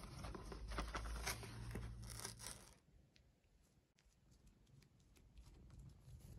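Paper mailer bag rustling and tearing as it is opened, busy for about three seconds, then dropping to faint, scattered light rustles.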